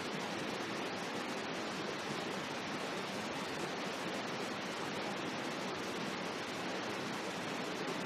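Steady rushing of a stream, an even water noise that does not change.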